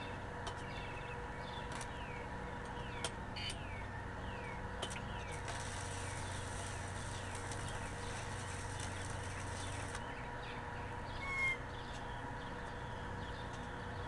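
Arc of a Harbor Freight DC stick (SMAW) welder burning a rod on a steel pipe: a steady hiss starts about five seconds in and cuts off suddenly about four seconds later as the arc is broken. Birds chirp throughout, with one short louder call shortly after the arc stops.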